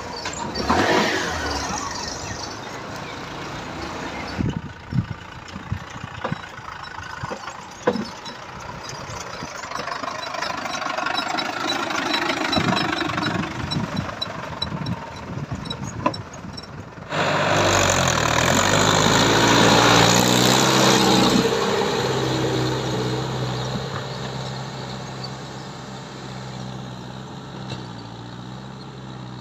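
Mahindra Yuvo 575 DI tractor's diesel engine running. The first part is noisy with scattered sharp clicks and knocks. Just past halfway it turns suddenly louder and steady, then slowly fades.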